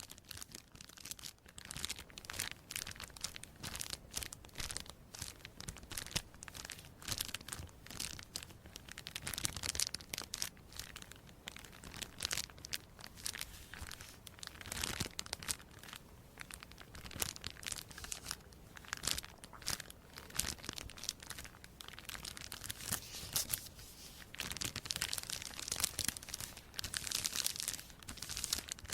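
Crisp crinkling and crackling, a dense run of quick, irregular crackles with louder flurries now and then.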